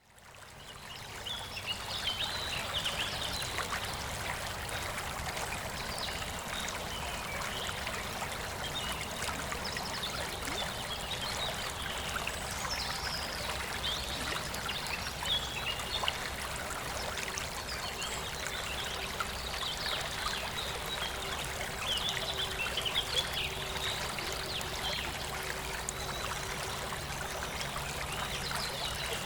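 Nature soundscape: a steady babbling stream of running water, with small birds chirping and singing throughout. It fades in over the first second.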